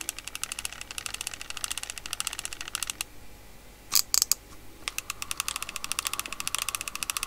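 Shimano TLD 15 lever-drag fishing reel being cranked by its handle, giving a fast, even ticking from its gears. The reel has just been rebuilt with new stainless steel bearings and turns really smooth. The cranking pauses briefly about three seconds in, with a short louder rattle just after, then the ticking resumes.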